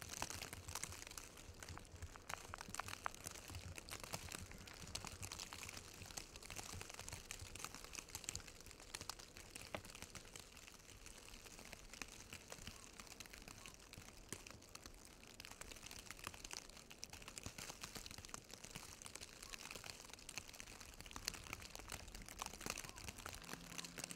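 Faint outdoor ambience in falling snow: an even hiss over an unsteady low wind rumble, dotted with many light crackles. A faint low hum comes in near the end.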